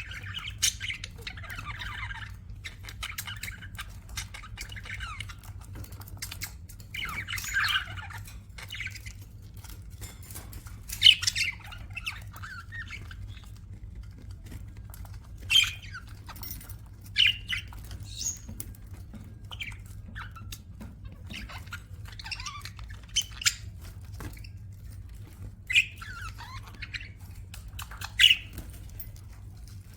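Budgerigars chattering, with warbled chirps and sharp squawking calls scattered throughout and a few louder calls standing out. A steady low hum runs underneath.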